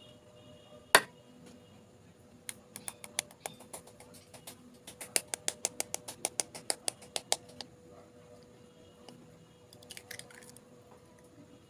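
An egg being cracked by hand over a glass bowl: a sharp knock about a second in, then light taps on the shell that speed up into a quick even run of about six a second, and near the end a brief crackle as the shell is pulled apart.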